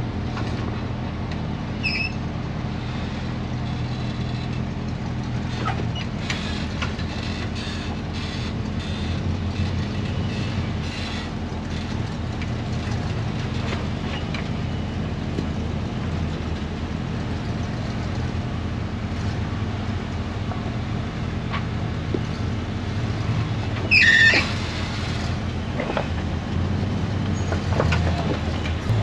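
Off-road truck engine running steadily at low revs, with scattered knocks. A brief high-pitched squeal about 24 seconds in is the loudest moment.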